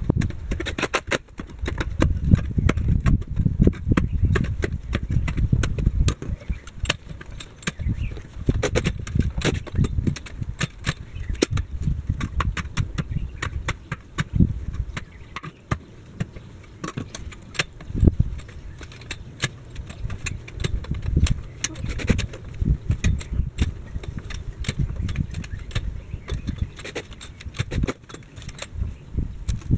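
A steel digging bar being jabbed repeatedly into stony ground at the foot of a gate post, giving a string of dull thuds and metallic clinks as it strikes stones.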